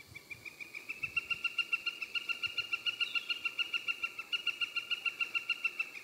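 Northern flicker long call: a rapid, even series of short, high notes, about seven a second, that builds in loudness over the first second and then holds steady for about five seconds.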